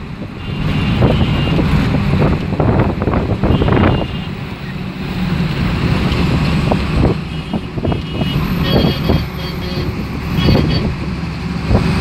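Engine and road rumble heard from inside a moving vehicle crossing a bridge, with knocks and rattles from the cabin. Several short high-pitched tones come and go.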